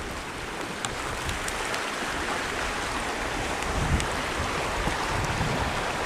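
Wind blowing over the microphone: a steady rushing hiss with low buffeting gusts that get stronger from about four seconds in.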